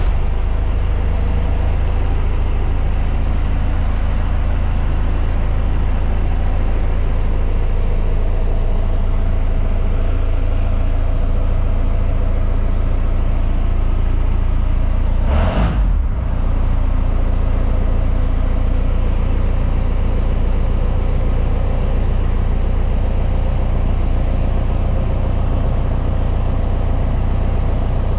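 Jeep's swapped-in diesel engine idling steadily just after a cold start on a cold morning, with one brief sharper noise about halfway through.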